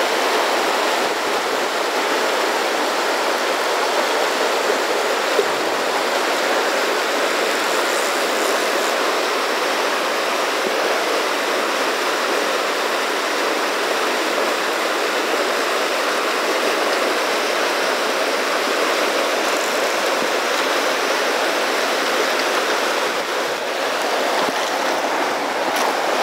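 Whitewater of a fast, rough-and-tumble mountain river rushing steadily over boulders in rapids and pocket water, loud and close.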